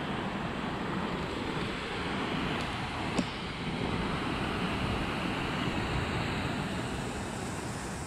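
Creek water spilling over a low concrete mill dam: a steady rushing wash, with some wind on the microphone. A single sharp tap stands out about three seconds in.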